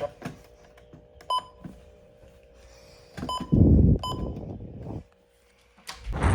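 Three short electronic beeps over a faint steady hum, followed by bursts of low rumbling noise, loudest a little past halfway, that drop out suddenly for about a second before starting again near the end.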